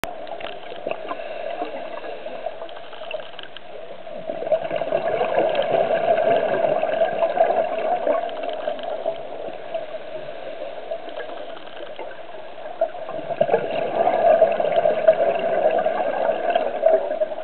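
Scuba diver's breathing bubbles gurgling underwater: two long bursts of exhaled bubbles, one starting about four seconds in and another about thirteen seconds in, each lasting roughly four seconds, with a quieter stretch between them.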